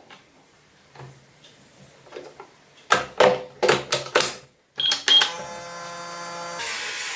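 Microwave oven handled and started: a quick run of clicks and knocks, two short high beeps, then a steady hum that grows louder and noisier near the end.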